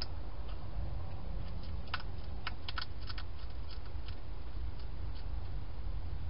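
Hedgehog eating dry food inside a plastic feeding box: sharp crunching clicks, a quick run of them about two to three seconds in, with scattered single ticks around it.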